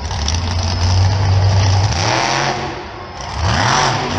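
Monster truck engine running loud and steady, then revving up twice, about two seconds in and again near the end, its pitch climbing with each rev.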